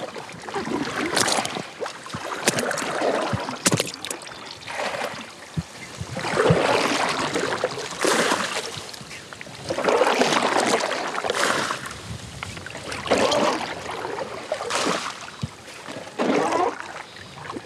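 Water being bailed out of a leaking inflatable boat with a plastic jug: repeated scoops and pours splashing over the side every couple of seconds, with the odd knock of the jug against the boat.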